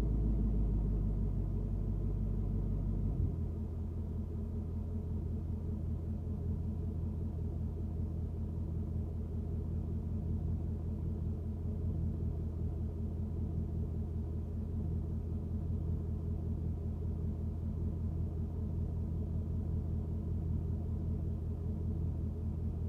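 Ford Mustang GT's 5.0 L V8 exhaust, picked up from inside the trunk, running steadily at low revs as a deep, even rumble. About three seconds in the lowest note drops away and it settles into a slightly quieter, steady note.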